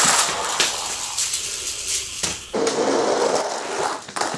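Hot Wheels Monster Jam toy trucks rolling on plastic track and out of the loops: a scraping roll of small plastic wheels on plastic, with several sharp clacks.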